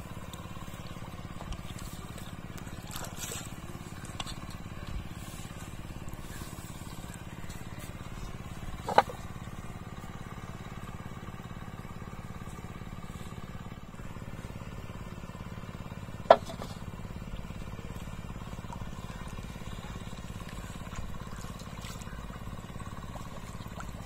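Bamboo-tube fish traps being handled and set into the mud of a riverbank, with two sharp knocks about seven seconds apart as the hollow bamboo is handled, over a steady low rumble.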